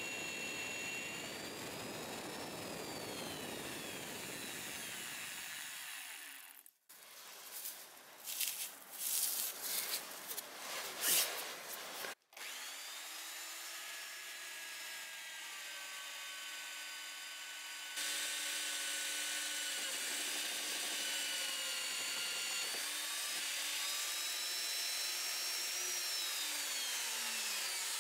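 Drill press boring a large bit into a hardwood ball for a mallet head. The motor whine sags and rises in pitch as the bit loads up and eases off. About seven seconds in there is a choppy stretch of louder scraping and chattering cutting noise, broken by two sudden cut-offs.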